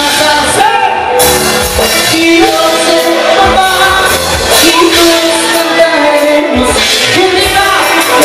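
Live band playing, a male lead singer singing over electric guitars, bass, keyboard and drums.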